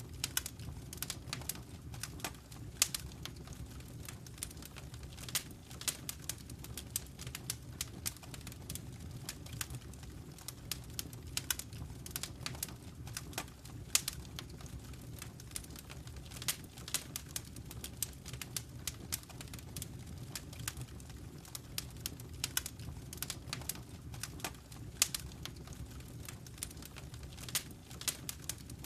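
Wood fire in a fireplace crackling: irregular sharp pops and snaps over a steady low rumble of the burning fire.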